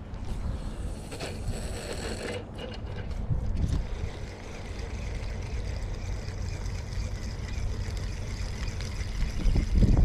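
Wind buffeting the microphone: a steady low rumble with stronger gusts about three and a half seconds in and again near the end.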